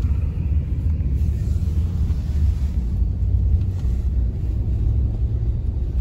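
Steady low rumble of a car's engine and tyres on a snow-covered road, heard from inside the cabin.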